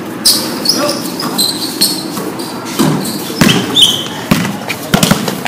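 Basketball bouncing on a concrete court, several dull thumps, mixed with short high sneaker squeaks as players cut and stop.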